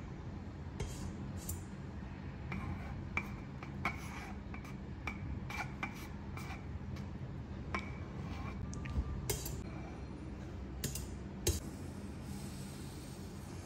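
Metal spatula scraping frosting and clicking against a cake turntable as the cake's side is smoothed: scattered light clicks and scrapes over a steady low hum.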